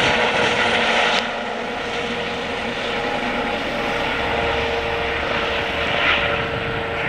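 Eurocopter EC135 air ambulance helicopter flying away after take-off: a steady whine over the rotor and engine noise. The sound drops in level about a second in, then holds.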